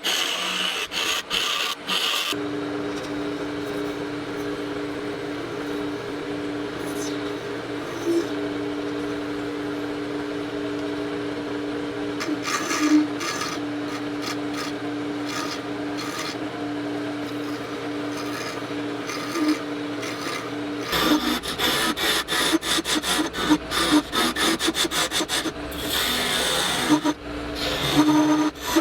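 Lathe turning a resin shift-knob blank: a steady motor hum with a rasping rub of tooling against the spinning resin. The sound changes abruptly about two seconds in and again about two-thirds of the way through, becoming a denser scratchy chatter over a low rumble.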